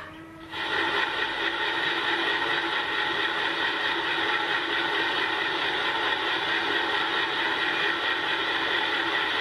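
Small homemade CNC lathe turning cast iron: the spindle and cut run steadily, a whine of several steady tones over the cutting hiss. The sound dips briefly right at the start.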